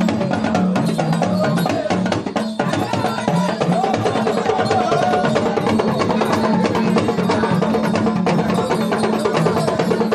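Drums playing a fast, dense, continuous rhythm of sharp strikes, with a low drum tone stepping back and forth between a few pitches.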